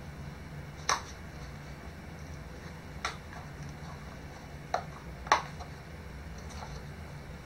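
Four short, sharp clicks and taps of items being handled, spread across several seconds with the last the loudest, over a steady low hum.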